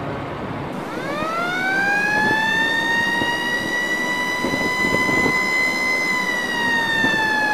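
A siren tone that winds up from a low pitch about a second in, climbs to a steady high pitch and holds there, sagging slightly near the end, over a steady background noise.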